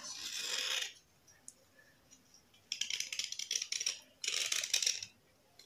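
A knife blade scraping the gritty white surface layer off a wet black bar, in three spells of quick rasping strokes: in the first second, around the middle, and shortly after.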